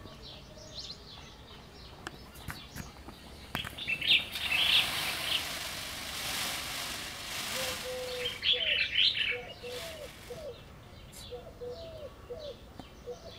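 Outdoor birdsong: small birds chirping and twittering high up, with a soft rustling hiss through the middle. In the second half a bird gives a run of short, low, falling calls, about two a second.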